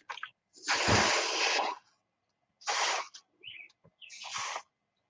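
Steam iron hissing in four bursts as it is pressed onto paper, the first and longest lasting about a second, the rest shorter.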